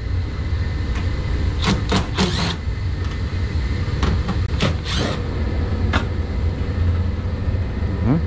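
Cordless drill/driver backing screws out of a boiler's sheet-metal burner access panel: short bursts and sharp metallic clicks, a cluster about two seconds in and single ones around four to six seconds in, over a steady low rumble.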